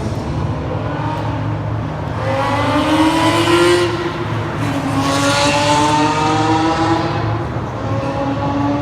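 Supercar engine accelerating hard, its pitch climbing, falling back about four seconds in, then climbing again.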